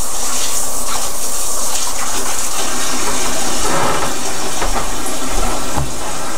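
Hot water running steadily from a kitchen tap.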